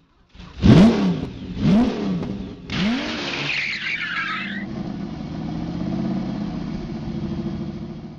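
Car engine revved in three quick blips, then running steadily. A hissy rush comes in over it from about three to four and a half seconds in.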